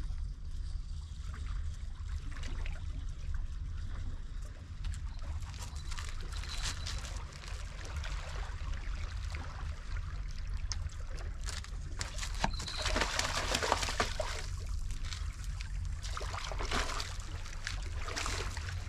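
Water splashing and sloshing at the rocks as a hooked bass is played in to the water's edge, with louder bursts of splashing about twelve seconds in and again near the end as the fish thrashes at the surface. A steady low rumble runs underneath.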